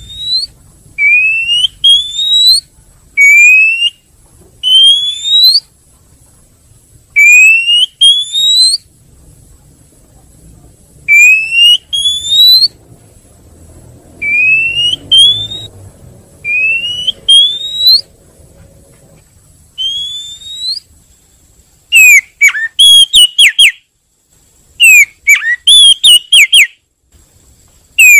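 Oriental magpie-robin (kacer) calls used as a trapping lure: loud, drawn-out rising whistles, mostly in pairs every couple of seconds. Near the end they give way to quick bursts of short, sharp falling notes.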